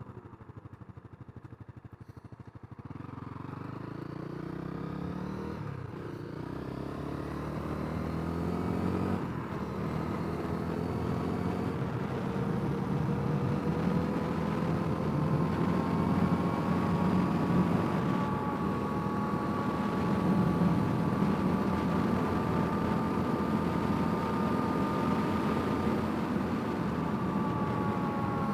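Honda CRF250L's single-cylinder four-stroke engine heard while riding. It runs quietly at first, then pulls away with its pitch rising through a few gear changes in the first ten seconds or so, and settles into a steady cruise.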